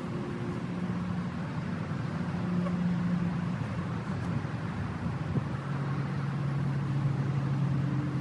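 Honeybees buzzing around an open hive: a steady drone with a few held low hums that shift in pitch as bees fly near.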